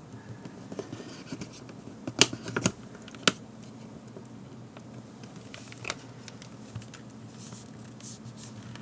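Plastic case of a Garmin nüvi 1690 GPS being pried apart by hand along its seam: quiet scraping and handling, with a few sharp plastic clicks, three close together about two to three seconds in, as the snap-fit case resists opening.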